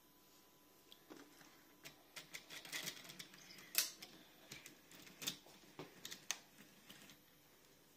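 Faint, irregular clicks and light rattles from a plastic Hornby TT:120 model railway turntable as its deck, carrying a locomotive, is turned by hand into line with a shed track; the sharpest click comes about four seconds in.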